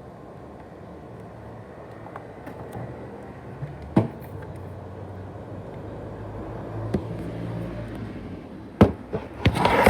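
ASUS X543UA laptop with a 500 GB USB hard drive running with a steady whir and low hum. A few single sharp clicks come through it, and a burst of louder rattling starts near the end. The owner likens the noise to a rattling and a jet engine.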